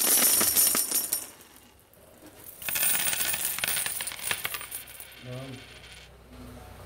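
Pepper grinder being twisted to grind black pepper: rapid gritty clicking in two bursts, one at the start lasting about a second and a half and another from under three seconds in lasting about two seconds.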